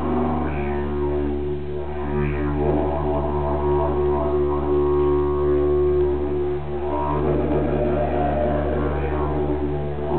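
Didgeridoo played solo: a continuous low drone with overtones above it that change every few seconds.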